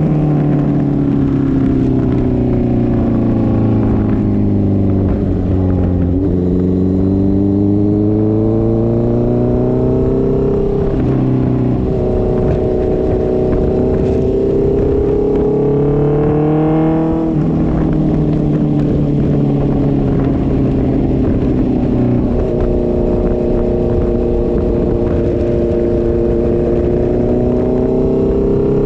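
Honda CB650F inline-four engine running through a straight-through Mivv MK3 full exhaust with no catalytic converter. The engine note falls and rises smoothly in pitch, with sudden steps a few times along the way (about twelve seconds in, near seventeen seconds and about twenty-two seconds in).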